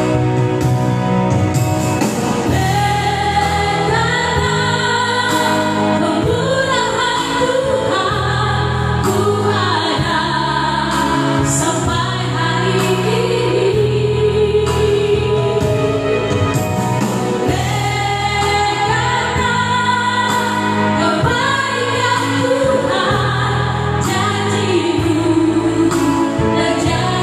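Four women singing a gospel praise song together into handheld microphones, with electronic keyboard accompaniment. The keyboard is heard alone at first, and the voices come in about two seconds in.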